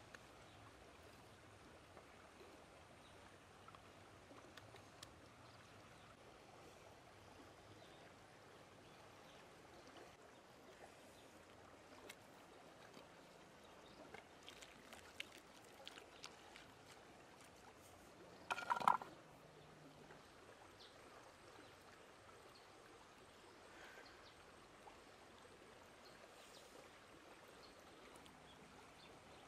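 Faint, steady flow of river water, with a few small clicks and one short, sharper sound about nineteen seconds in.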